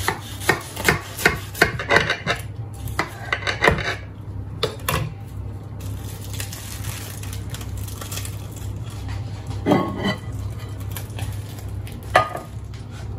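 A knife cutting through a flaky baked pastry pie crust, a dense run of quick crackles and scrapes for the first few seconds. Then a metal serving spoon scrapes and knocks against the ceramic pie dish a couple of times as a slice is worked loose.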